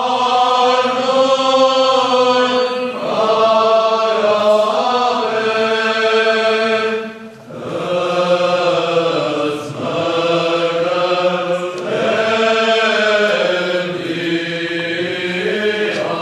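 Armenian liturgical chant sung by a group of men's voices together, in long held notes that bend slowly. The singing breaks off briefly about seven seconds in, then carries on.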